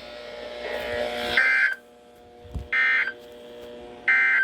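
Three short, equal bursts of buzzy SAME digital data tones from a NOAA Weather Radio broadcast, about a second and a half apart: the end-of-message code that closes the required weekly test.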